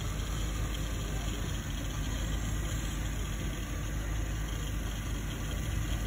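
Modified off-road 4x4's engine idling steadily.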